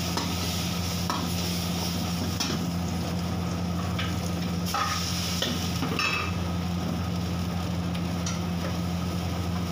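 A metal ladle stirring and scraping in a wok, with several sharp clanks against the pan, as onion and green capsicum fry and sizzle in hot oil. A steady low hum runs underneath.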